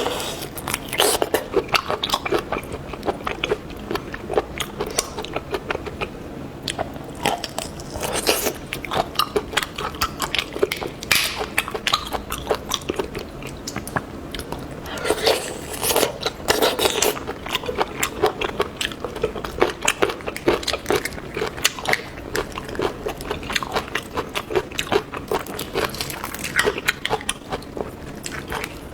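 Close-miked eating of seafood: crunchy bites and chewing, full of small sharp crackles that come in bursts throughout.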